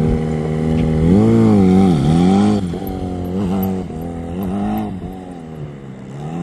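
Yamaha XJ6N's inline-four engine held at steady revs, then revving hard about a second in as the motorcycle launches and rides away, revs rising and falling again and again with the throttle through the turns. The engine grows fainter as it moves off.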